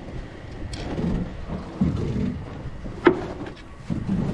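Steady low rumble of wind and water around a small wooden fishing boat at sea, with one sharp click about three seconds in.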